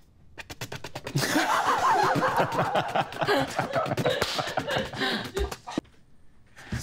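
A quick run of sharp clicks, then several people laughing hard for about four seconds, dying away near the end.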